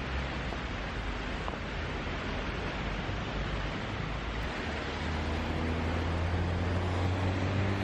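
Steady rushing of wind over the microphone. About halfway through, a low, steady engine hum comes in and holds.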